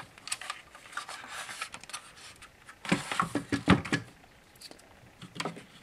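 Hands handling an airsoft electric gun and its wiring: scattered light clicks, taps and rustles of plastic and wire as the MOSFET's connector is being plugged into the gun, most of them between about three and four seconds in.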